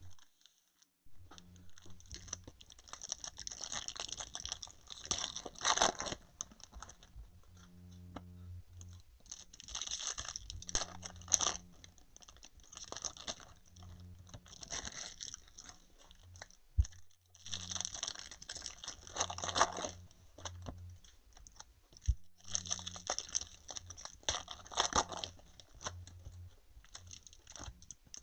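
Foil trading-card pack wrappers being torn open and crinkled, in crackly bursts of a few seconds that repeat every few seconds.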